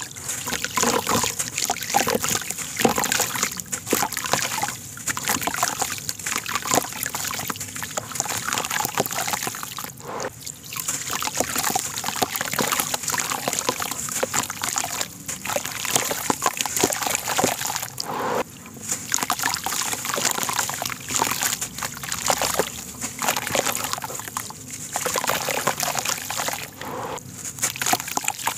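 Hands dunking and squeezing a soft sand block in a plastic basin of water: continuous sloshing, dripping and splashing as wet sand crumbles off into the water, with a few short pauses.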